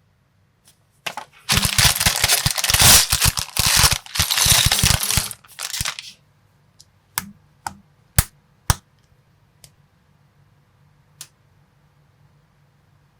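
Small plastic building bricks clattering in a dense rattle of many hard clicks for about four seconds, as loose pieces are poured or spilled out together. After that come a few separate sharp clicks of single pieces being set down or snapped on.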